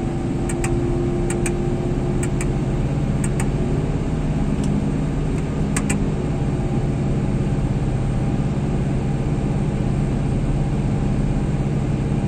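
Combine harvester diesel engine running steadily at high revs, close to its 2000 rpm working speed, with the unloading elevator engaged. Several sharp clicks sound in the first half.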